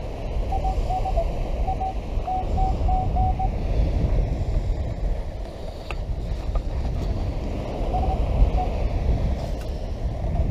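Minelab metal detector giving short target beeps at one steady pitch: a quick run of about eight in the first few seconds and a couple more a little past the middle, signalling buried metal under the coil. Heavy wind rumble on the microphone runs beneath them.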